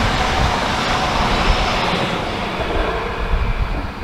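Electric passenger train rolling past, a steady rush of wheels on rails that fades in the second half as the last cars go by. Wind buffets the microphone throughout.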